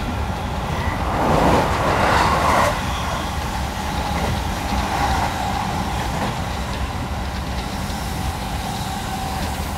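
Passenger train running at speed, heard from inside the carriage: a steady low rumble of wheels on the track. It swells louder for about a second and a half, starting about a second in.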